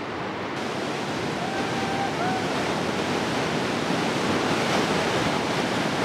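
River rapids rushing: a steady, dense wash of churning whitewater that swells a little over the first few seconds.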